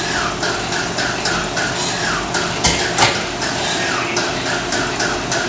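Jacobs radial airplane engine idling, with a rhythmic metallic clatter at about four beats a second. Two sharp clacks come about three seconds in.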